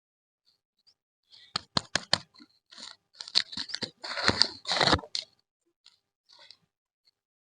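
Plastic candy packaging being handled and opened: a run of sharp crackles and clicks, densest between about one and a half and five seconds in, then a few faint ticks.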